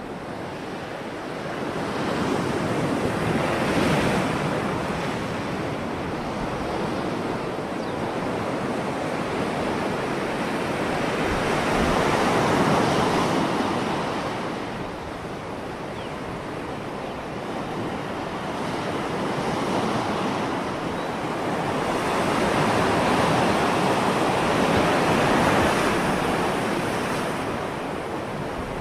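Sea waves breaking and washing over rocks, a continuous rushing surge that swells and eases every several seconds, loudest about four seconds in, around twelve seconds and again in the last few seconds.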